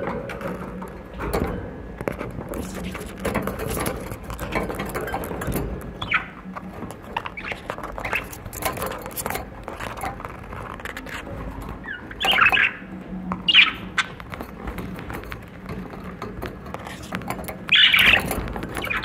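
Budgerigars in a wire cage giving a few short, sharp chirps, the loudest about two-thirds through and again near the end. Under them runs a constant light clicking and scratching of beaks and claws on the cage bars.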